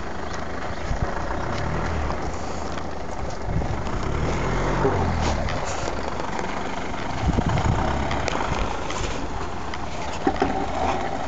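Tata Safari 3.0 diesel SUV engine revving hard under load, its pitch rising and falling, as the tyres spin and scrabble for grip in loose dirt on a steep climb.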